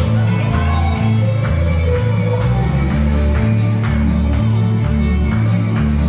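Fiddle music for jigging, with a bass accompaniment and a steady beat of about two strokes a second.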